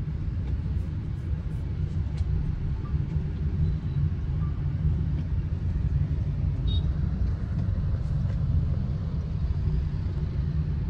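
Steady low rumble of a moving car, heard from inside the taxi's cabin, with a few faint ticks.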